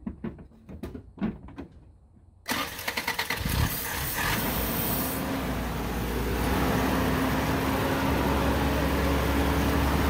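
Carbureted Toyota 22R four-cylinder engine cranked by the starter about two and a half seconds in, catching within a second and settling into a steady idle. It starts and keeps running now that the worn distributor cap and rotor contacts have been cleaned, having failed to idle because of too little spark.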